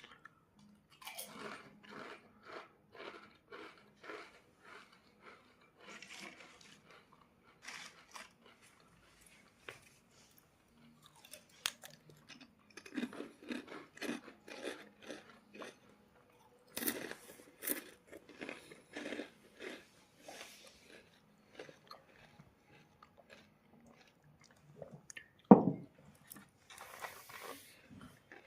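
Close-up crunchy chewing of crisp snacks (Lays chips or Kurkure), in spells of steady rhythmic crunches about two to three a second. A single loud knock comes near the end.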